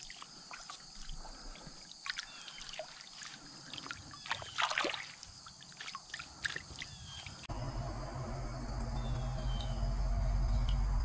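Creek water sloshing and trickling with scattered small splashes and clicks, under a steady chorus of insects. About seven and a half seconds in, a loud low rumble comes in abruptly and holds.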